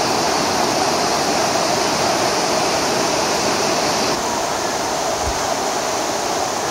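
Shallow mountain river rushing over stones and boulders in small rapids, a loud, steady roar of water. The hiss drops a little about four seconds in.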